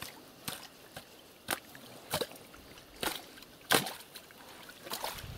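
Shovel blade chopping into wet, root-filled soil in a muddy trench: a string of sharp strikes, seven or so, with the loudest about three-quarters of the way through. The blade is cutting through roots to open a drainage channel, and water trickles through the cut.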